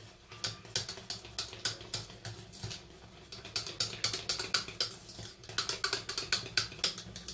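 A hand whisk clicking and scraping against the side of a stainless steel pot as whipped egg whites are folded into an egg-yolk and mascarpone cream. The clicks come quick and irregular, and grow denser from about four seconds in.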